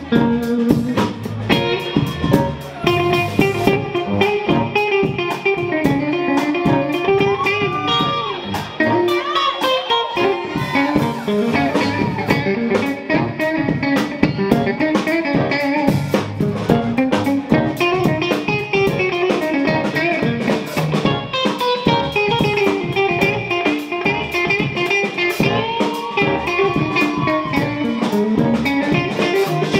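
Live band playing with an electric guitar solo on a Telecaster-style guitar over keyboard, bass and drums; the guitar bends several notes up and back down.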